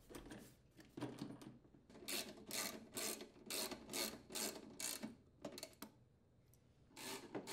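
Ratchet socket wrench on an extension running down the fuel tank's mounting bolts: short bursts of ratcheting about twice a second. It stops for a moment about three-quarters of the way through, then starts again near the end.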